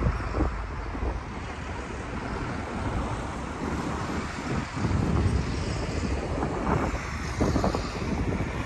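Wind buffeting the microphone: a low, uneven rumble that swells and drops in gusts.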